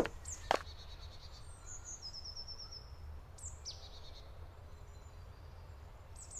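Two footsteps on a gravel forest track in the first half second, then woodland birds calling: a short rapid trill and a few quick falling chirps, over a faint low rumble.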